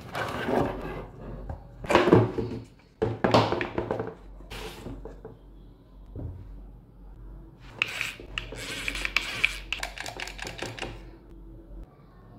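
Objects being handled: several short rustling, knocking bursts, then a run of quick clicks and rattles.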